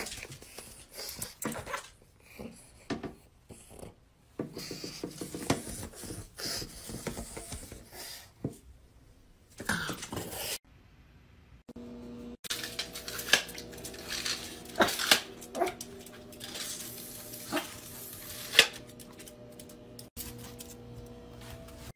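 Pet dogs making sounds in a run of short home clips, among sharp clicks and knocks. A steady hum runs under the middle part.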